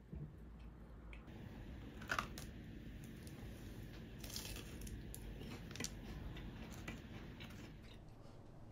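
Faint eating sounds from a bento meal: a few scattered clicks and taps of chopsticks against the plastic box, and chewing, the loudest click about two seconds in. A low steady room hum runs underneath.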